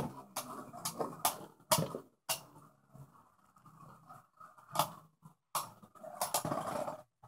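Two Beyblade Burst spinning tops whirring and rattling across the plastic floor of a Beyblade Burst stadium, with sharp clacks each time they hit each other or the wall. The spinning stops about seven seconds in.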